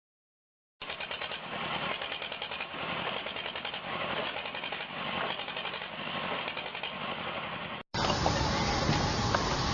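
Heavy machinery engine running with a fast, even pulsing, starting abruptly about a second in. Near the end it cuts to a louder, noisier stretch of machine sound from another recording.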